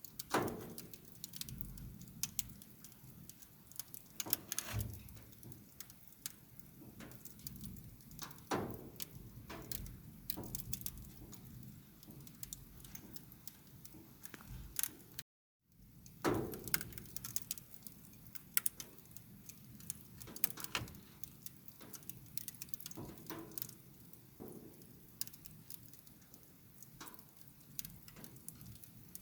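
Fire crackling: irregular sharp pops and snaps over a low rumble of flames, with a few louder pops. The sound cuts out completely for a moment about halfway, then resumes.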